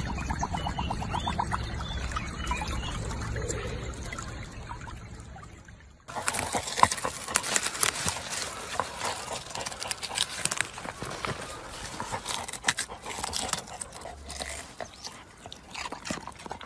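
A husky lapping water from a muddy puddle, a quick regular lapping. About six seconds in it gives way to a Labrador retriever digging and rooting in loose soil and leafy plants at a white radish: rapid irregular scraping, scratching and rustling.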